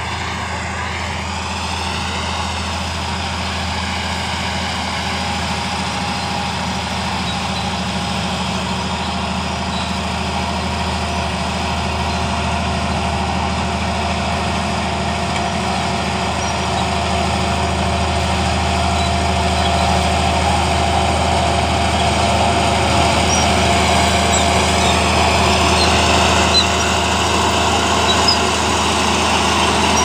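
Crawler bulldozer's diesel engine running steadily under load as it pushes a heap of soil with its blade, growing gradually louder as it comes closer.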